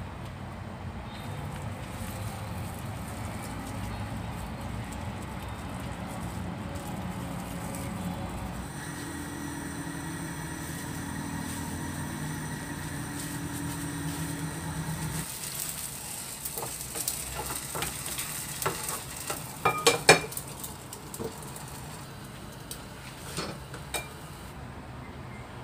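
A filled wrap sizzling as it fries in a non-stick pan, the sizzle starting a little over halfway through. It comes with a run of sharp clinks and knocks of cookware against the pan; the loudest comes about three quarters of the way in.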